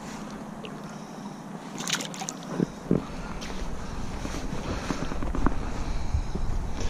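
Water splashing and small knocks at the lake edge about two seconds in, as a small pike is slipped back into the shallows. After that, wind rumbles on the microphone, growing louder toward the end.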